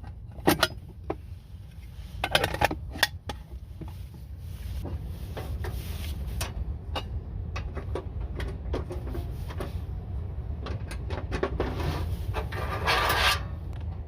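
Nested pieces of a German Army cook kit (frying pan, dish and container) clinking and knocking as they are handled, with a brief scraping noise near the end over a steady low rumble.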